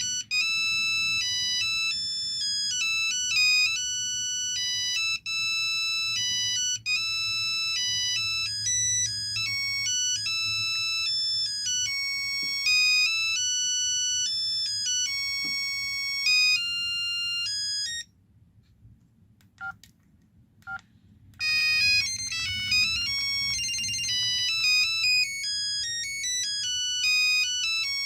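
LG V111 mobile phone's built-in ringtones playing through its small speaker: high-pitched electronic melodies of quick, stepping notes. The melody stops for about three seconds, two-thirds of the way in, before a melody starts again.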